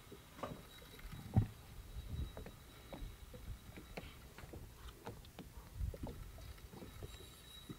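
Water slapping against a small boat's hull, with scattered short clicks and knocks; the loudest is a single thump about a second and a half in.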